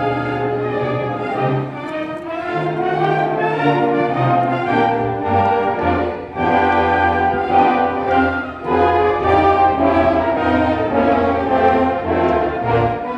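Orchestral music with brass instruments to the fore, playing sustained chords.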